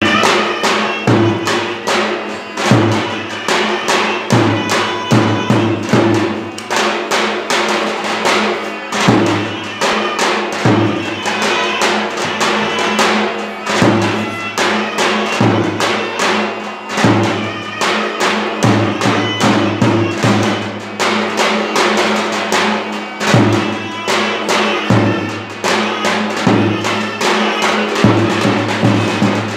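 Live davul, the large double-headed Turkish drum, beating out a zeybek dance tune, with a wind instrument carrying the melody.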